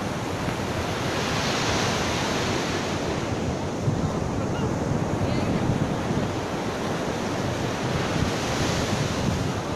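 Ocean surf breaking and washing up the beach, with wind buffeting the microphone. The wash swells about two seconds in and again near the end.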